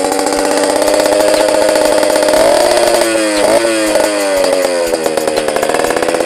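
Yamaha Alfa's two-stroke single-cylinder engine running at high revs for a sound check, its pitch dipping and wavering through the middle before settling back to a steady high rev.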